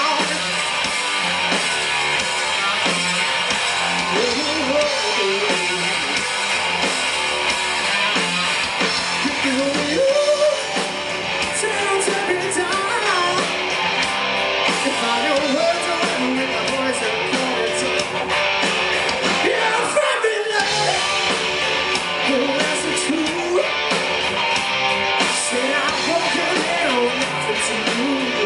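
Live rock band playing: lead vocals over electric guitars and drums.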